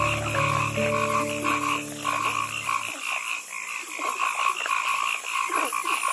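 Frogs calling in a chorus, a rapid run of repeated croaking calls at about three a second.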